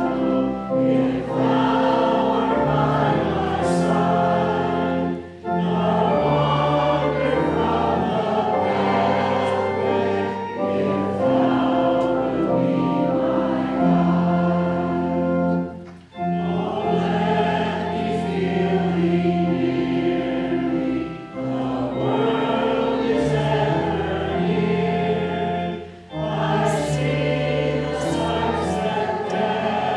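Choir singing a hymn in long held phrases over a steady low accompaniment, with short breaks between phrases.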